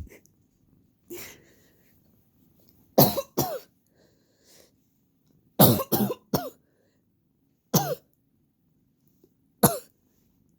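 A person coughing repeatedly from allergies in short bursts: a pair of coughs about three seconds in, three quick ones near six seconds, then single coughs near eight and ten seconds.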